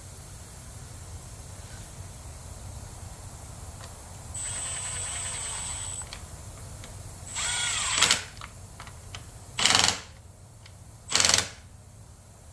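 Short whirs of a small mechanical device about halfway through, then two short, loud puffs of blowing a couple of seconds apart.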